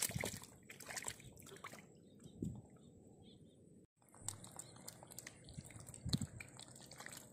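Snakehead fish flapping and wriggling in shallow muddy water: scattered wet slaps, sloshes and drips, with a louder splash near the start and another about six seconds in. The sound drops out completely for a moment about halfway.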